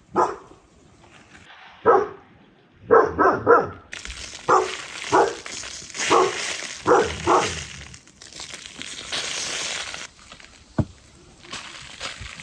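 A dog barking, about ten short barks, some in quick runs of three. Through the middle there is a steady hiss of dry white powder being sprinkled by hand over a mud-clay ball, and near the end a single sharp knock.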